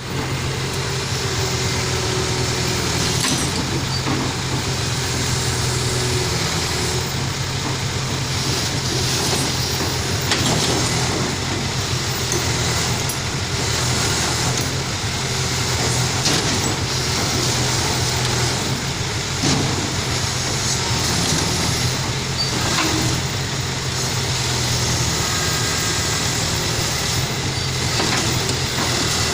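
Heavy machinery engine running steadily with a constant low drone, with a few sharp knocks scattered through it.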